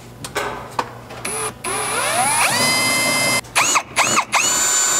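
Cordless drill with a 1/4-inch bit drilling out a pilot hole in thin sheet-metal vehicle floor, the first step in enlarging it for a rivet nut. The motor spins up with a rising whine and runs steadily. Near the end it is pulsed on and off in a few short spurts, then runs steady again.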